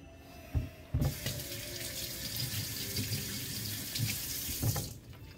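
Kitchen tap turned on about a second in, running for about four seconds as oily hands are rinsed under it, then shut off. A couple of low knocks come as it starts.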